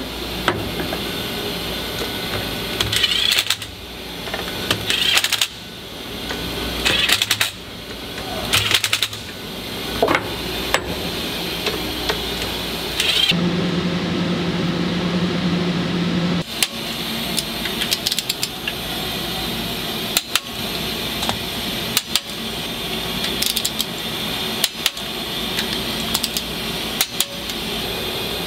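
Metal parts being handled as aluminium blocks are loaded onto a clamping fixture: scattered sharp clinks and knocks over steady machine-shop noise. A steady low hum takes over for about three seconds near the middle.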